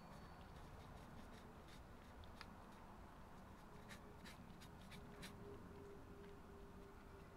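Cats eating from a foil tray: faint scattered clicks of chewing and licking over near silence.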